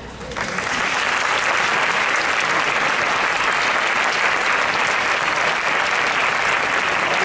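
Audience applauding: dense clapping breaks out about half a second in, just as the last of the band's final chord dies away, and then holds at a steady level.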